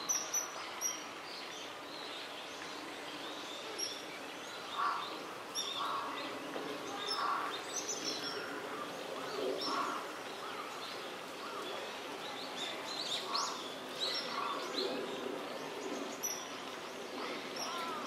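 Wild birds calling: short lower calls every second or two and thin high chirps scattered through, over a steady background hiss.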